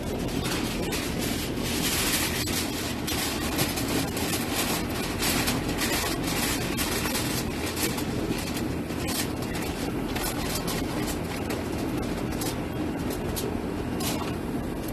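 Aluminium foil crinkling and crackling as it is pressed and crimped over a metal pan, over a steady low background rumble.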